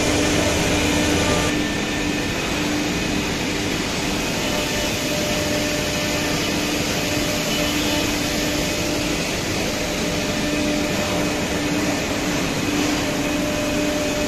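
Steady machine noise of a CNC nesting router and its dust extraction running, with a steady humming note, dropping slightly in level about a second and a half in.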